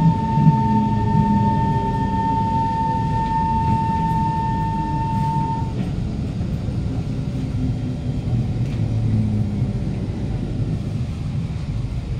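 Onboard a Kawasaki Heavy Industries C151 metro car, its GTO-VVVF traction inverter whining at one steady pitch while the train slows into the station. The whine cuts off suddenly about halfway through, leaving the low rumble of the car rolling to a stop.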